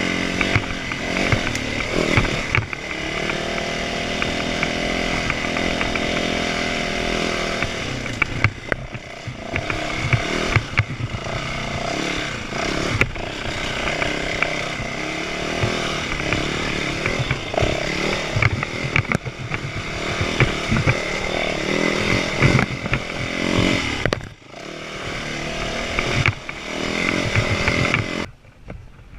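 Small petrol engine running hard, its revs rising and falling. It cuts off suddenly near the end.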